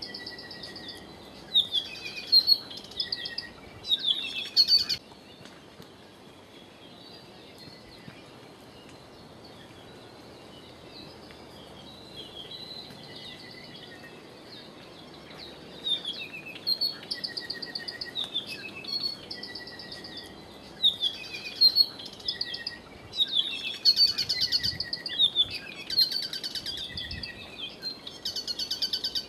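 Wild birds singing: a mix of short chirps, whistled notes and fast trills, loud in bursts in the first few seconds and again through the second half, over a steady faint hiss.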